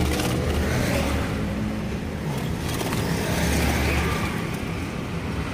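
Low rumble of road traffic, swelling and fading as vehicles pass.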